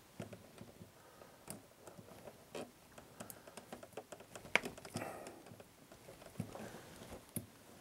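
Small, irregular clicks and taps of pliers squeezing a plastic suitcase connector shut on a wire, pressing its metal blade through the insulation to make the connection.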